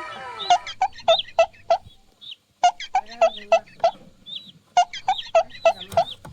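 Chicken clucking in three quick runs of about five short calls each, with faint higher chirps in between.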